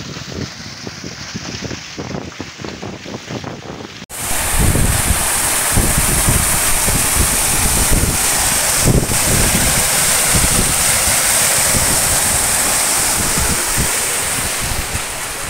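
Ballast water gushing out of a tank's air vent head and spilling across a steel ship deck as the tank is pressed full during a pressure test: a steady rush of water, with wind buffeting the microphone. About four seconds in it switches abruptly to a much louder, hissier rush, heard right at the vent.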